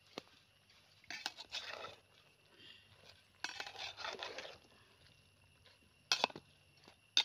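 A perforated metal ladle stirring noodles in a metal cooking pot: several sharp clinks of the ladle against the pot, with two longer stretches of scraping and rustling as it is dragged through the noodles.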